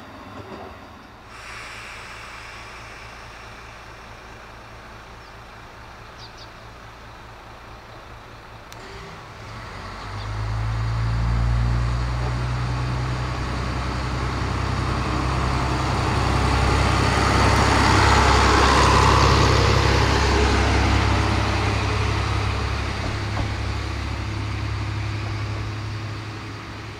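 Yamagata Railway Flower Nagai Line diesel railcar drawing close, its diesel engine running with a steady low drone from about ten seconds in, and wheel and rail noise building to its loudest near two-thirds of the way through, then easing.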